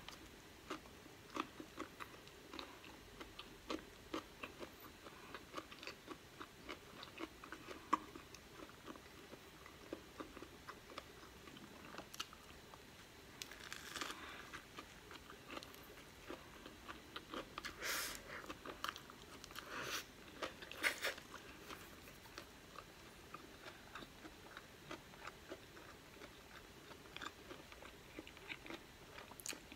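Close-up mouth sounds of a person biting into and chewing a sesame-seed-bun burger: many small, quick wet clicks and smacks, with a few louder, noisier bites partway through.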